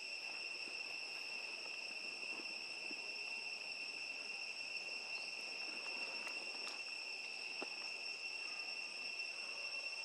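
A steady, high-pitched drone of insects that never breaks, with a few faint clicks in the middle.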